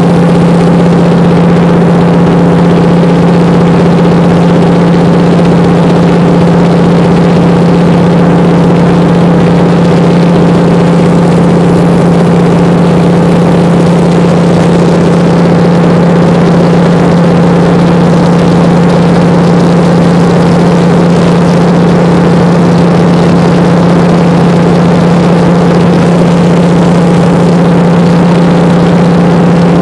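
De Havilland Beaver floatplane's radial engine and propeller droning steadily in cruise flight, heard loud from inside the cabin.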